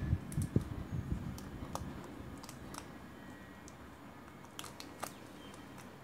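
Thin clear plastic sleeve being folded by hand around a lighter: scattered small crinkles and clicks, with a few handling bumps in the first second.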